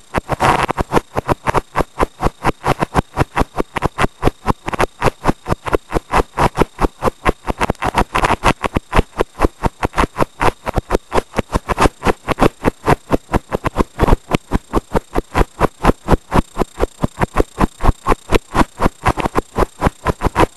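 Vehicle running while it drives, heard through a faulty camera microphone that chops the sound into even, sharp pulses about four times a second.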